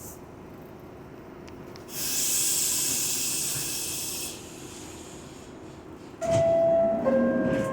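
An R62 subway car's pneumatic system lets out a loud air hiss for about two seconds. Later, a two-note descending door chime sounds, the signal that the doors are about to close.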